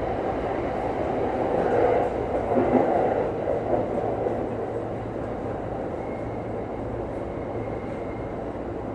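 JR East commuter electric train running into a station, heard from the driver's cab: the rumble of wheels on the rails, louder for a couple of seconds early in the stretch, then steadier and softer as it slows for the stop, with a faint thin high tone from about six seconds in.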